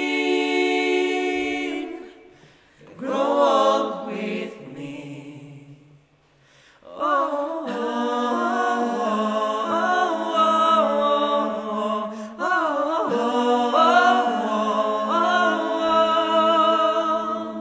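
Male voices singing a cappella in close harmony, wordless: a held chord, a short phrase after a brief pause, and, after a moment of silence, long sustained harmonies with moving lines.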